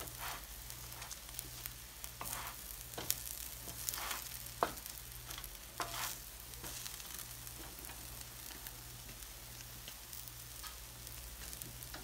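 Instant noodle cake with ham, mushroom and egg sizzling steadily in a nonstick frying pan. A wooden spatula scrapes and taps against the pan several times in the first half, shifting the noodles so they don't burn.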